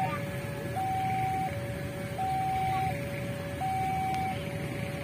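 Railway level-crossing warning alarm sounding its two-tone electronic signal, a high note and a lower note alternating about every three-quarters of a second, the signal that a train is approaching. A steady low rumble runs underneath.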